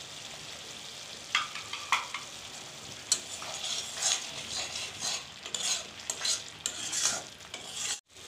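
Thick tomato-onion masala with freshly added cumin and coriander powder sizzling in oil in a kadai. A spatula scrapes and stirs it in repeated strokes, starting about a second in.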